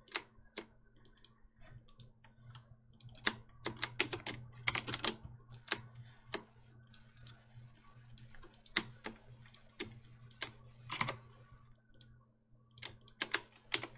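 Computer keyboard keys and mouse clicking in irregular bursts, over a faint, steady low hum.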